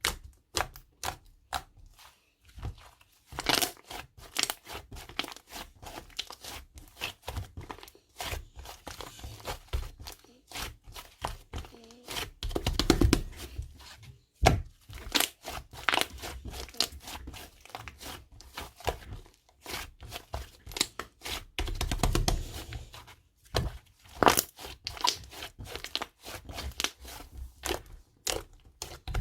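Green slime being squished, stretched and folded by hand, giving dense, irregular crackling and sticky popping clicks. Two heavier, louder presses come about thirteen and twenty-two seconds in.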